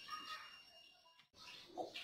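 Quiet room with little to hear, and a brief, faint voice sound from a toddler near the end.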